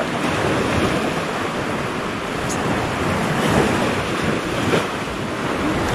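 Surf breaking and washing up a sand beach in a steady rush, with wind buffeting the microphone.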